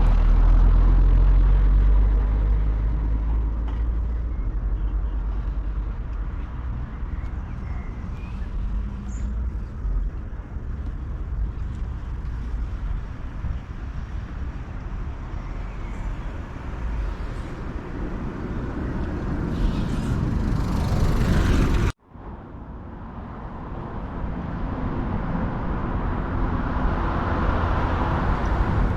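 Road traffic with vehicle engines rumbling and passing, loudest at the start and building again before a sudden cut about 22 seconds in, after which the traffic noise resumes.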